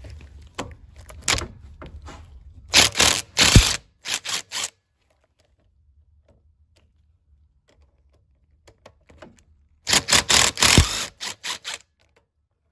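AC lines being worked off a car's air-conditioning compressor: two spells of rushing, clicking noise, about 3 s and 10 s in, with faint clicks between them. The rush is air going into the compressor, which was under slight vacuum after its refrigerant was recovered.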